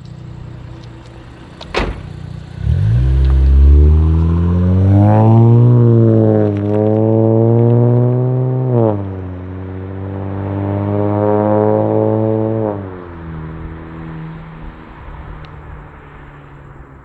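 2018 Infiniti Q60's twin-turbo V6 through a custom 3-inch double-X-pipe exhaust with Flowmaster FlowFX mufflers, pulling away hard from a low rumble after a sharp crack. Its pitch climbs, dips briefly at gear changes, then eases off and fades away as the car passes.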